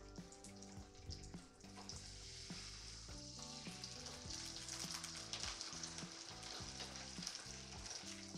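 Sea bream fillets sizzling skin-side down in hot olive oil in a frying pan. The sizzle grows louder a few seconds in as a second fillet is laid into the oil.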